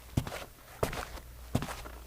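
Footsteps walking at a steady pace: three steps, about one every two-thirds of a second, each a firm heel strike followed by a lighter toe strike and a short scuff.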